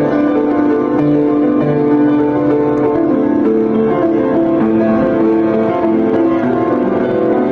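Background music led by piano, a steady flowing melody without a strong beat.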